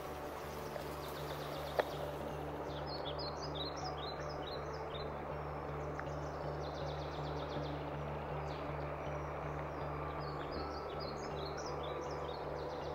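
Steady rush of a shallow, fast-flowing river over stones, with birds chirping in two quick runs of short falling notes, one a few seconds in and one near the end. A faint click comes about two seconds in.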